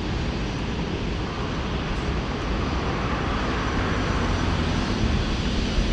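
Jet engines of an Asiana Airlines Airbus airliner taxiing toward the bridge, a steady rumbling rush that grows slowly louder as it approaches.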